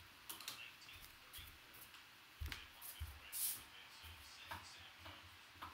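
Faint footsteps on a hardwood floor, soft thuds roughly every half second, mixed with a few light clicks and a short rustle about three and a half seconds in.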